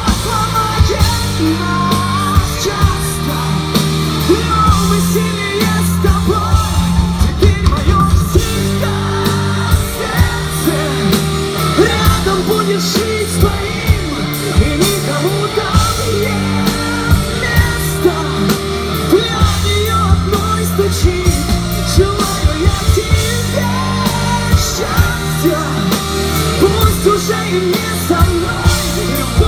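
A rock band playing live: singing over electric guitar and bass with a steady drum beat.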